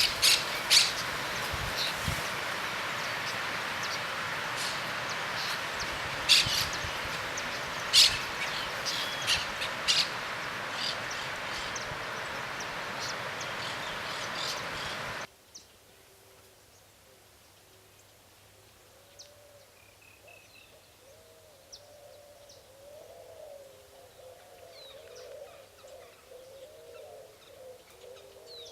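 Sharp high bird chirps over a loud, steady rushing noise, which cuts off suddenly about halfway through. The rest is quieter, with faint chirps and, from about two-thirds in, a dove cooing low and repeatedly.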